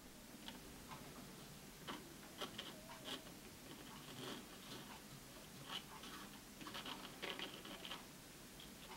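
Faint, irregular scratching strokes of a folded sheet of sandpaper rubbed around a loudspeaker's frame rim and cone edge, cleaning off the remains of the old foam surround.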